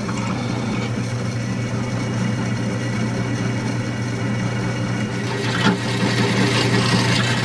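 Drill press running steadily with a constant motor hum while a twist drill bores into steel flat bar; the cutting noise grows louder about five seconds in.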